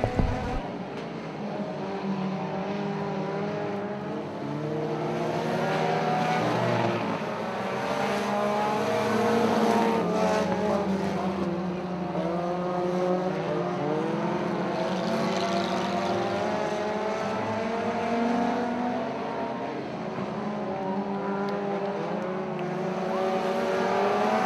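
A pack of Dirt Demons-class compact race cars running hard around a dirt oval, several engines heard at once, their pitches rising and falling as the cars accelerate and lift through the turns.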